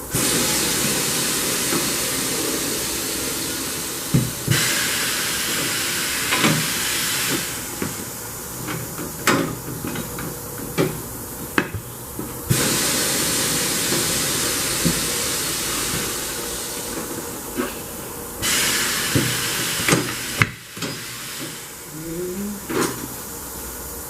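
Compressed air hissing in several long bursts of a few seconds each during tire dismounting, with metallic clanks and knocks from the tire-changing work in between. A short rising squeal comes near the end.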